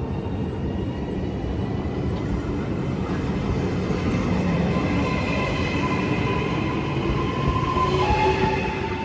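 Train passing on the line: a steady rumble with a whine that grows louder, then drops in pitch about eight seconds in as it goes by.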